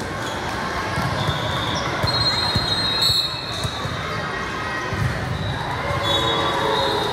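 Indoor volleyball game in a gym: a ball thumping on the hard court floor, shoes squeaking in short high bursts, and spectators talking in the background.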